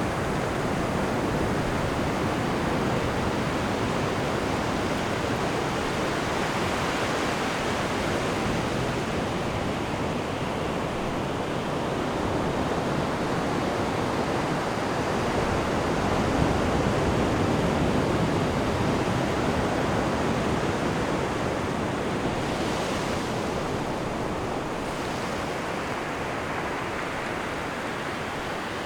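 Ocean surf: waves breaking and washing ashore in a continuous rush, swelling a little about halfway through.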